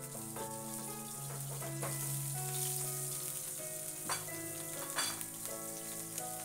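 Butter sizzling as it melts in a hot nonstick frying pan, stirred and spread with a silicone spatula at first, with two sharp knocks about four and five seconds in. Background music with held notes plays underneath.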